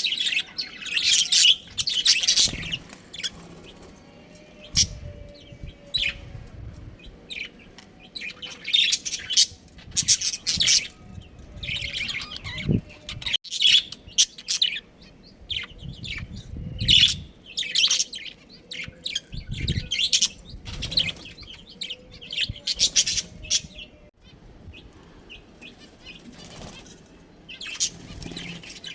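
Budgerigars chirping and chattering in many short, irregular high calls, with occasional low fluttering sounds.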